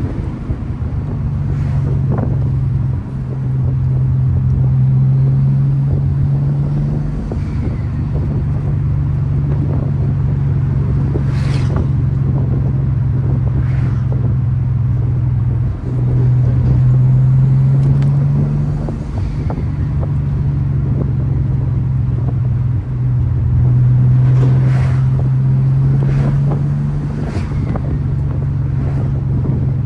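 Turbocharged VR6 engine and exhaust running at steady revs, a strong low drone whose pitch shifts slightly up and down. There are brief dips in level about three, sixteen and twenty-three seconds in.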